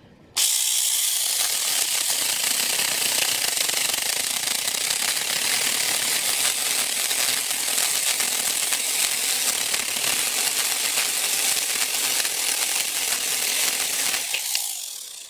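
Zeeksaw battery mini chainsaw, running on a DeWalt 20V MAX battery, cutting into an oak tree. It starts suddenly about half a second in and runs as a steady high-pitched buzz, then dies away near the end.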